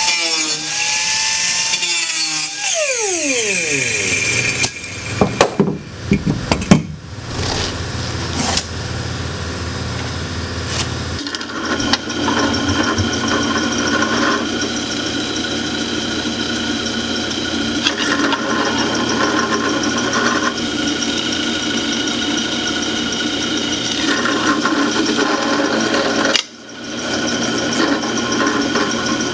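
An angle grinder with a cut-off wheel whines steadily, then winds down with a falling whine once it is switched off, followed by a few loud knocks. Then a drill press runs with a steady hum, drilling holes in 3/16-inch aluminium flat bar in spells, with a brief drop near the end.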